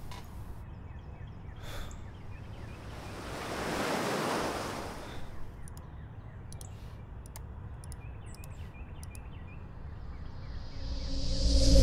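Sound-design whooshes over a low hiss: a soft rushing swell rises and fades about four seconds in, and near the end a riser climbs in pitch and loudness, then cuts off suddenly.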